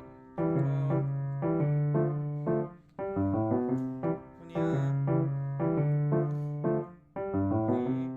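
Background piano music: a gentle melody over chords that change about once a second, with short pauses between phrases.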